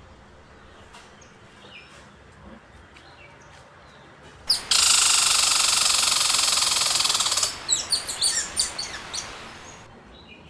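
Faint bird chirps, then a sudden loud, fast-pulsing buzz of a cicada-like insect call that starts about four and a half seconds in. It holds steady for about three seconds, then breaks into separate chirps and fades away.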